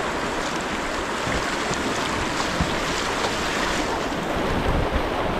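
Steady rush of fast-flowing river water around a whitewater kayak as it is paddled through the current, with low buffeting of wind on the microphone.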